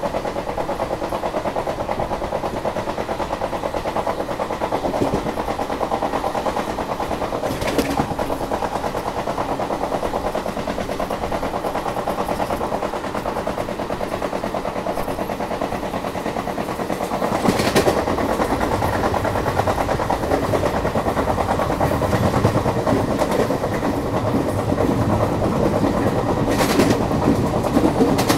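Indian passenger train running at speed, heard from the open doorway: the steady rattle and clatter of the coach's wheels on the rails, with a few sharp clanks. About two-thirds through it turns louder and deeper.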